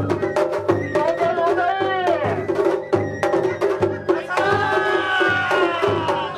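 Japanese festival-float drumming (matsuri-bayashi): a heavy ōdaiko beat about twice a second with quick shime-daiko stick strokes between, and a high sliding melody line over the drums.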